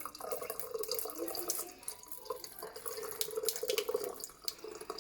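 The setting solution from a jelly-sphere spherification kit being poured out, a steady stream of water splashing, with small clicks and knocks of the vessel.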